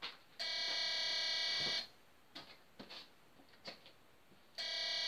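Homemade walk-through metal detector's alarm buzzer sounding twice, each a steady electronic buzz of about a second and a half, set off by an air pistol carried between its panels. Faint ticks in the gap between the two buzzes.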